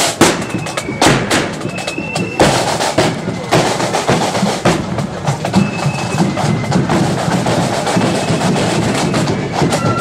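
Marching flute band playing: bass drum strikes and snare drums under flutes. The heaviest drum strikes come in the first two and a half seconds.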